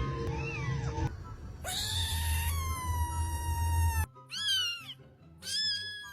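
Cats meowing: a short meow, then a long drawn-out meow, then two shorter meows, with background music.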